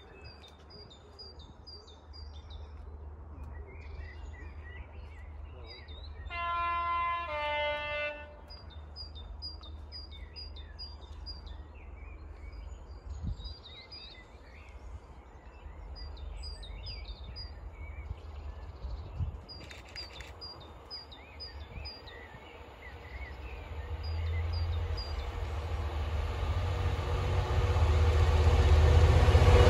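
Birds chirping against a faint low rumble. About seven seconds in, a two-tone train horn sounds, a higher note and then a lower one. From about 23 seconds the deep running of an approaching class 66 diesel locomotive hauling a stone train grows steadily louder.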